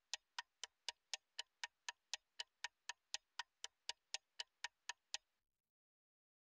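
Faint, even clock-like ticking, about four ticks a second, which stops about five seconds in.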